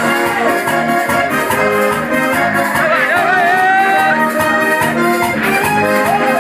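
Live accordion playing a dance tune, held chords under a moving melody line.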